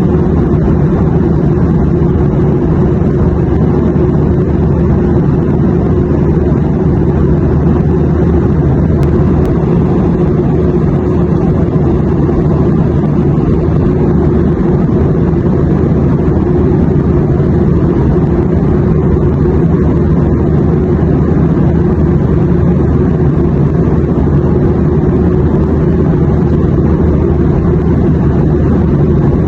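Airplane noise: a steady, even low drone with no changes.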